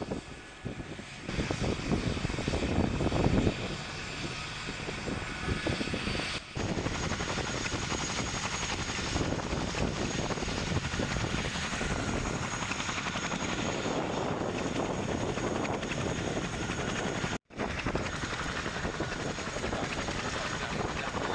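Helicopter running nearby: a steady engine and rotor noise with a thin high whine, rougher and louder in the first few seconds, dropping out for an instant about three-quarters of the way through.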